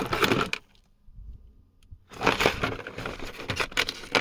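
Rustling and clattering of hands rummaging among small parts, a dense run of clicks and scrapes. It stops for about a second and a half, then starts up again busier.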